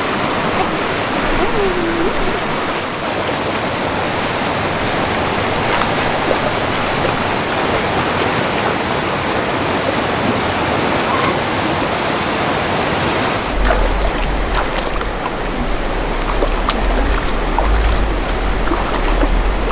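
Mountain stream water rushing steadily over rocks. A low rumble joins about two-thirds of the way through.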